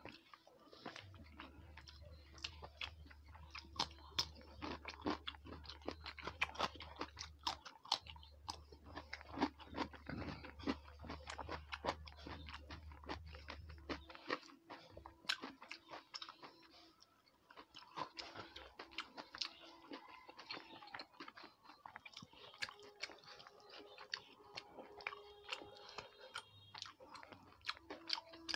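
Close-miked chewing of rice and fish curry eaten by hand, with many small wet mouth clicks and crunches. A low hum sits underneath and stops about halfway through.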